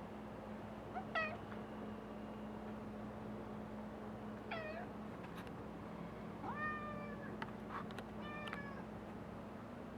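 An animal giving four short, pitched, whining calls, spaced a couple of seconds apart, with a few faint clicks between them.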